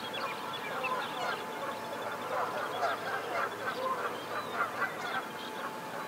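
A busy chorus of distant waterfowl: geese honking and ducks calling, many short calls overlapping without a break.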